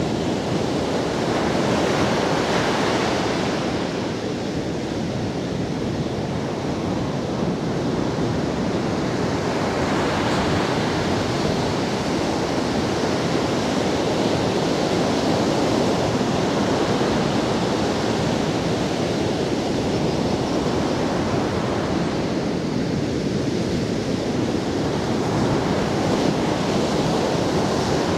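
Ocean surf breaking on a sandy beach: a continuous rush of waves and wash that swells as breakers come in, near the start, about ten seconds in and again near the end.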